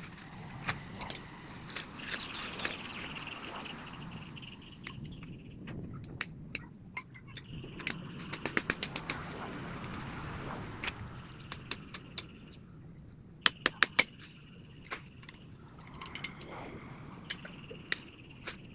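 Sharp, irregular clicks and snaps, the loudest a quick run of four about two-thirds of the way in. A bird's short falling chirp repeats steadily through the second half, over a constant high insect-like hiss.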